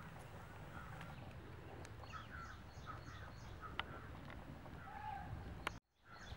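Outdoor ambience of birds calling, including a run of about five short, quick, repeated high chirps, over a low steady rumble with a few sharp clicks. The sound drops out for a moment near the end.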